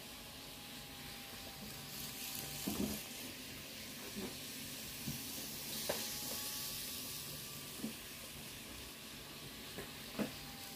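Kato N-scale E233 series model train running on its track: a steady hiss with a faint motor whine and scattered light clicks from the wheels on the rails as the train passes.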